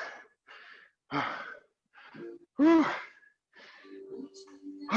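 Hard, ragged breathing from someone doing burpees and out of breath: a sharp breath about every second, with a loud voiced gasp near the middle.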